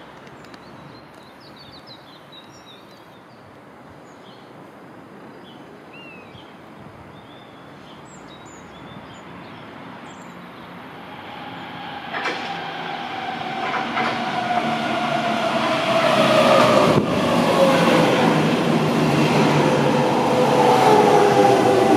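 Berlin S-Bahn class 480 electric train approaching and running into the station. The first half is quiet with birds chirping. From about halfway through, the train's rumble grows steadily louder, with a falling whine from its traction motors as it slows and a few clacks over the rail joints.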